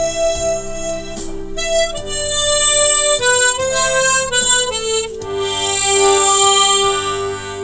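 Harmonica in G playing a slow melody of long held notes, with a short falling run of notes about four to five seconds in, over a lower backing accompaniment.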